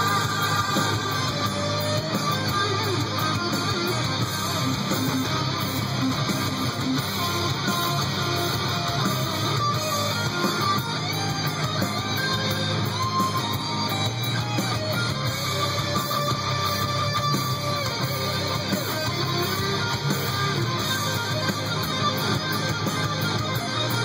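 Rock music led by guitars, playing continuously at a steady level.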